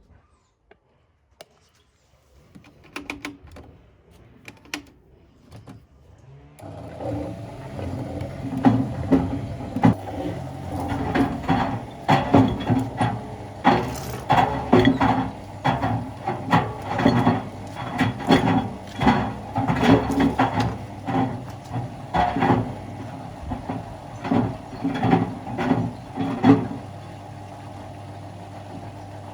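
Miele washing machine with a 6-litre water bottle inside it: after a few light clicks, the motor starts about seven seconds in and runs with a steady hum while the bottle knocks against the drum once or twice a second. Near the end the knocking stops and only the steady hum remains.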